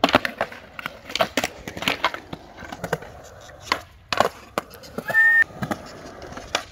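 Skateboard wheels rolling on concrete, broken by a string of sharp wooden clacks and knocks from the board: tail pops, the deck slapping the concrete and the wheels landing. A brief high-pitched squeal sounds about five seconds in.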